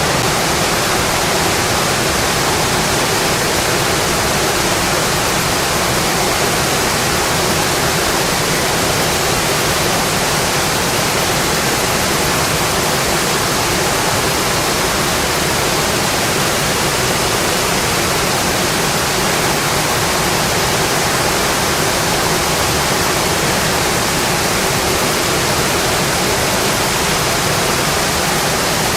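Steady rainfall, an even hiss with no separate drops, thunder or other events standing out.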